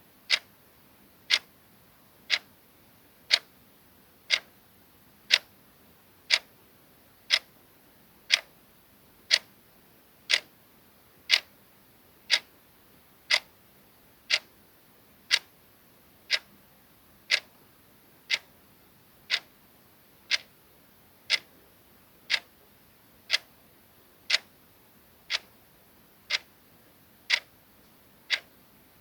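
Clock ticking sound effect: a single short, crisp tick once every second, keeping a steady beat.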